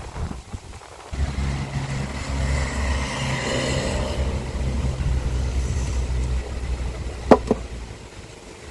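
A deep, steady rumble that starts suddenly about a second in and fades near the end, with a rising and falling hiss through the middle. Two sharp clicks come in quick succession near the end.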